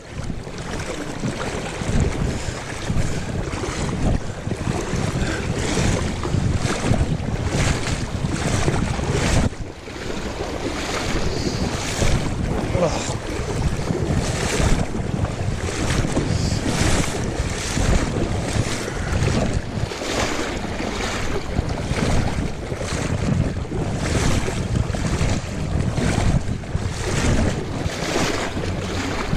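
River water rushing and rippling in a fast, fairly high flow around a wading angler, with wind buffeting the microphone in irregular gusts.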